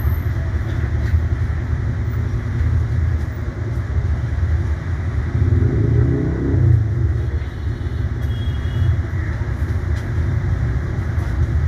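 Window-type air conditioner's compressor running with a steady low hum and rumble, swelling a little about six seconds in.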